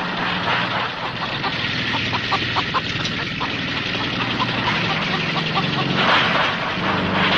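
A steady low motor-like drone with short shrill cries over it, from the soundtrack of a horror film trailer.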